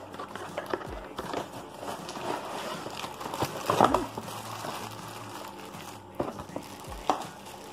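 Plastic bags crinkling and rustling, with cardboard scraping and small knocks, as plastic-wrapped ring light parts are pulled out of a cardboard box. The loudest crackle comes about four seconds in.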